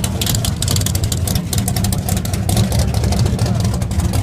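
Sports car engine running with a deep, steady rumble made of rapid pulses and a crackle over it.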